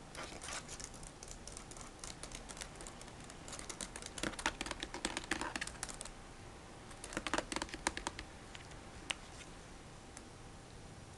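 Typing on a laptop keyboard: quick flurries of light key clicks, a short pause about six seconds in, then another flurry and a lone click near the end.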